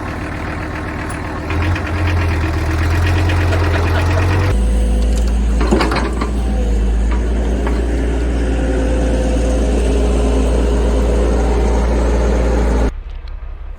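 Heavy equipment engine running with a steady low rumble, its tone changing abruptly twice early on and a brief clatter about six seconds in, then cutting off suddenly near the end.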